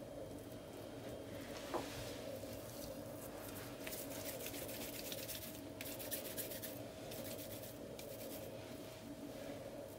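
Hands rolling sticky date paste between the palms and pressing it onto semolina dough: soft rubbing and scratchy rustling with small clicks, and a light tap about two seconds in. A steady faint hum runs underneath.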